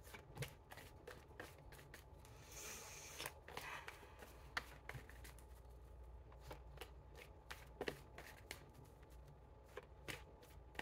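A tarot deck being shuffled by hand: faint, irregular soft clicks and slaps of cards, with a short hiss of cards sliding together about two and a half seconds in.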